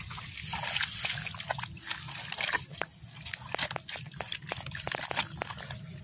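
Feet squelching and sloshing in wet rice-paddy mud, with many short wet pops and clicks, as weeds are trodden down into the mud.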